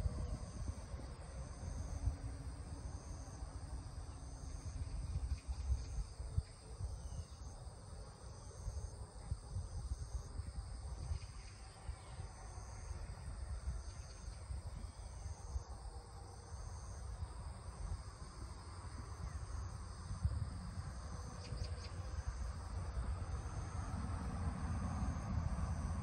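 Insects calling in the background, a high-pitched pulse repeating evenly a little over a second apart, over a steady low rumble.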